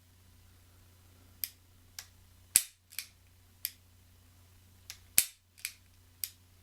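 .44 Magnum revolver being dry-fired on an empty cylinder: sharp metallic clicks of the action, with two loud snaps of the hammer falling on empty chambers about two and a half seconds apart and softer clicks of the hammer and cylinder in between. A faint steady hum lies underneath.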